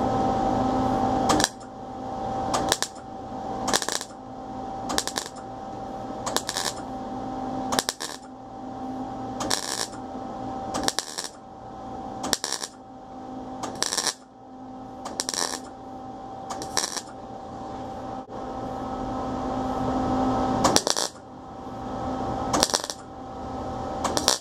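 MIG welder stitching thin 20-gauge sheet steel in a run of short bursts, roughly one every second or so, each starting and stopping sharply, over a steady hum. The short bursts are used to fill a small hole that burned through the thin metal.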